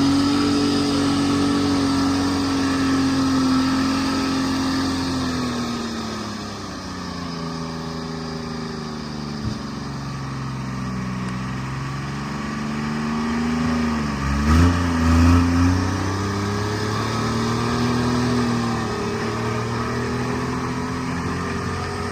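Treefarmer C5 forwarder's engine running: steady at first, dropping in pitch after about five seconds, then rising and falling, with a couple of short revs about two-thirds of the way through.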